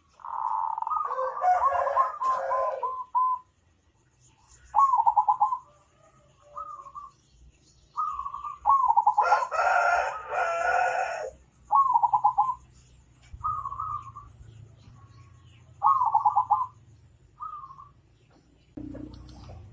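Birds calling: short warbling calls repeated every second or two, with one longer, louder call lasting about two seconds, about nine seconds in.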